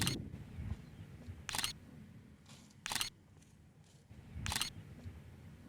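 Camera shutter firing four times, evenly spaced about a second and a half apart: short, sharp clicks over a faint low rumble of wind.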